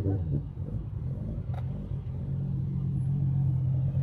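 A car engine running steadily at idle, a low even drone. A short sharp click about a second and a half in.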